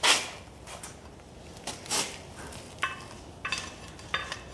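Metal-on-metal clinks and scrapes as the steel rod of a cam bearing removal tool is slid into the camshaft bore of a Ford FE 390 cast-iron block. About five sharp clinks, some ringing briefly, the first the loudest.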